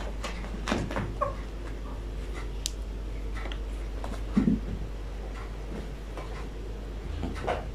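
Two long-haired cats tussling: scuffling and rustling on a carpet with a few brief cat cries. A short low sound about four and a half seconds in is the loudest.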